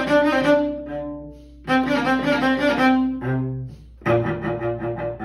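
Solo cello bowed: three phrases of quick running notes, broken by short pauses, with a low held note about three seconds in.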